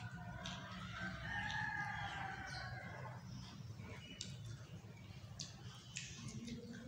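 A rooster crowing: one long drawn-out call that fades out about three seconds in, with scattered light clicks.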